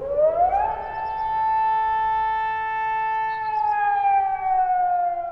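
1937 air-raid siren wailing. Its pitch rises quickly in the first second, holds steady, then slides slowly down over the last two seconds.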